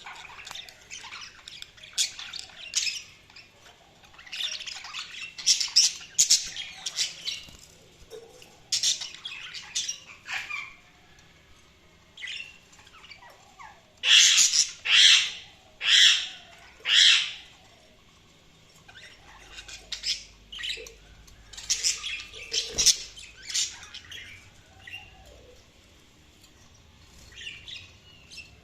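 A bird calling in short, repeated squawks and chirps, with four loud calls about a second apart near the middle.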